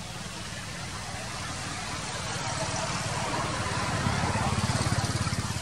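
A motor vehicle's engine running close by, growing louder and then easing off near the end, as if passing.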